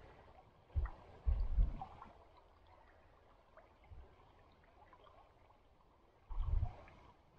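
Small stream flowing and trickling over rocks, as a faint steady rush. A few short low rumbles on the microphone come about a second in and again near the end.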